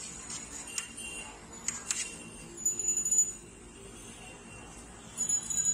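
Crisp fried puris crackling as they are cracked open by hand, a few sharp clicks. A high bell-like ringing sounds twice, about halfway through and again near the end, over a low street hum.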